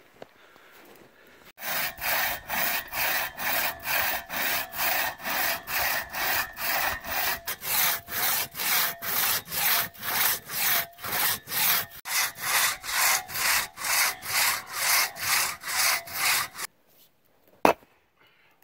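Six-foot two-man crosscut saw cutting through a log, a saw that cuts in both directions, with even back-and-forth rasping strokes about two a second. It starts about a second and a half in and stops suddenly near the end, followed by a single sharp knock.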